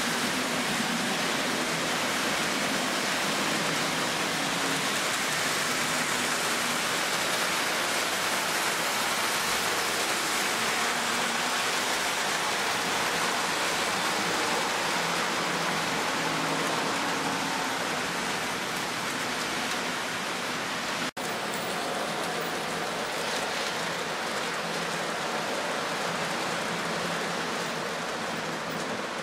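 Three-rail O-gauge model trains rolling over the layout's track: a steady rushing hiss of metal wheels on steel rails with a faint low hum beneath. The sound drops out sharply for an instant about two-thirds of the way through.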